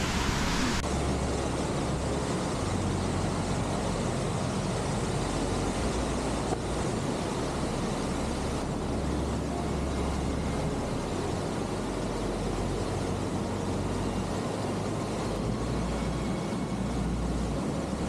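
Steady, unbroken rush of a mountain stream and its waterfalls.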